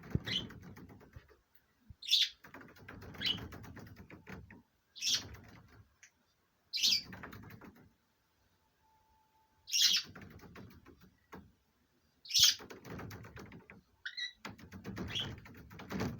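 Budgerigars calling in courtship: a sharp high chirp every two to three seconds, each followed by a second or two of rapid clicking chatter, with a short quiet stretch about halfway through.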